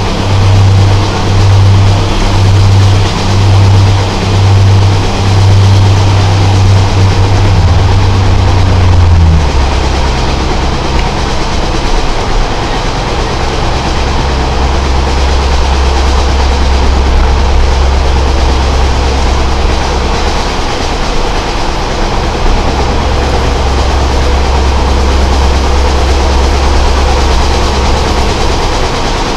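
Class 143 Pacer diesel railcar under way: its diesel engine gives a low throb that pulses a little over once a second, then drops to a lower, steady drone about nine seconds in as the revs fall, over the running noise of the train.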